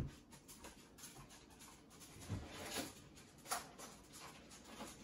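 Faint knocks and clicks in a quiet kitchen, four or five scattered over a few seconds, as someone rummages out of sight for a pair of scissors.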